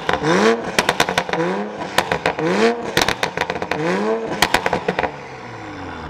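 2020 Toyota Supra's turbocharged inline-six, fitted with a Titan Motorsport downpipe on the stock exhaust and an MHD tune, revved in four quick blips while standing still. Each blip is followed by crackles and pops from the exhaust, and the revs fall back near the end.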